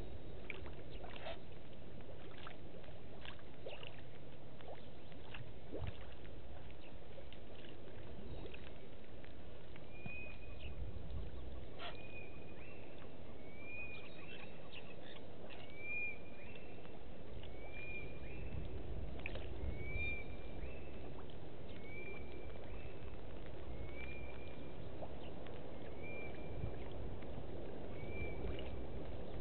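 A bird repeats a short rising chirp about every two seconds, starting about a third of the way in, over a steady low rumble of bush ambience. A few faint clicks come in the first several seconds.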